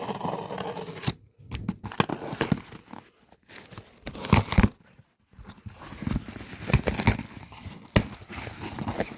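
A mailed package being opened by hand: packaging tearing and crinkling, with irregular sharp clicks and rustles, loudest about halfway through.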